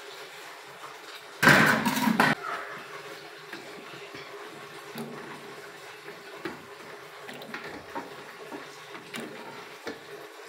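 Cut pieces of yam dropped into a large aluminium pot of water: one loud splash about a second and a half in, then scattered small plops and knocks as more pieces go in.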